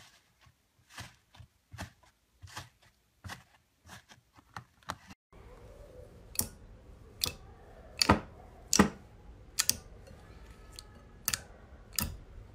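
Fingers working slime, giving crisp crackles and clicks about once a second. About five seconds in, the sound changes to thick glossy slime being poked and pressed, with sharper, louder pops as air pockets burst.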